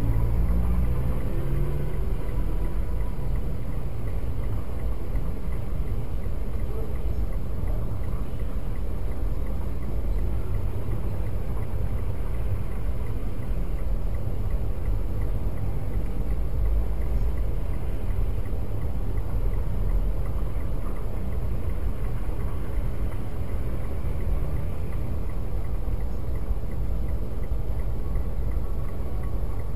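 Steady low rumble of a stopped car's engine idling, heard from inside the car.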